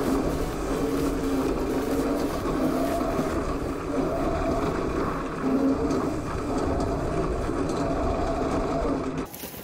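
Homemade 72 V electric scale truck driving over rough ground, heard from a camera mounted on it: the QS138 motor and gear drive run with a steady whine over a rumbling low end. The sound cuts off suddenly near the end.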